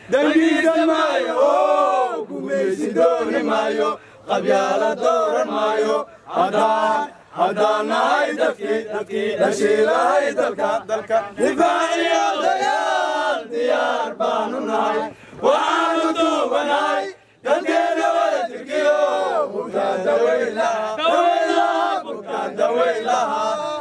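Men chanting in unison, pitched phrases one to two seconds long repeated with short breaks between them.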